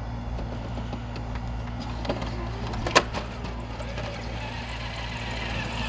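Traxxas TRX-4 RC rock crawler's electric motor and drivetrain whining as the truck creeps up a pile of rubble, with one sharp knock about three seconds in.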